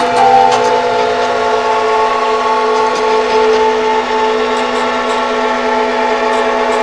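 Scanner and printer motors whining in several steady, overlapping tones, with a few faint ticks; a higher tone joins about a second in.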